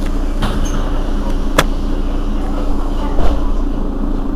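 Mercedes-Benz Citaro city bus's diesel engine idling with a steady hum. A few sharp clicks or knocks in the first couple of seconds sit on top of it.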